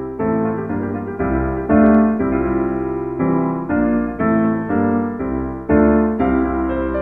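Background music: a piano-like keyboard playing a run of chords, a new chord struck about every half second to a second.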